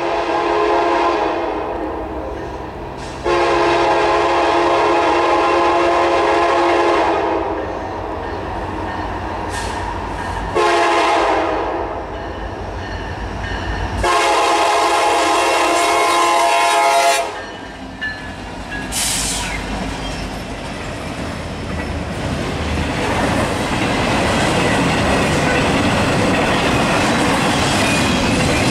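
Diesel locomotive horn blowing the grade-crossing signal, long, long, short, long, the first blast already under way and ending about a second in. The two diesel locomotives then pass, and the double-stack container cars roll by with a steady rumble and the clack of wheels that grows louder toward the end.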